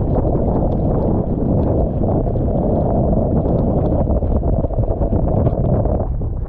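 Storm wind blasting across the microphone as a loud, continuous rumble, with choppy water splashing around people wading beside a boat trailer. The rumble eases briefly just before the end.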